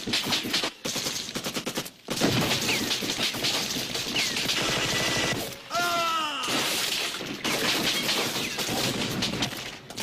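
Sustained rapid automatic gunfire from several weapons in a film battle sequence, dense and continuous with brief lulls. About six seconds in, the firing briefly drops away under a short pitched sound gliding downward, then resumes.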